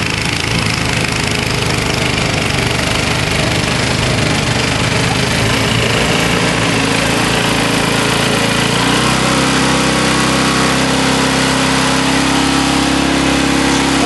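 Engine of a 1962 Snow Bird S-262 snowblower running steadily as it throws snow. Its pitch steps up about nine seconds in.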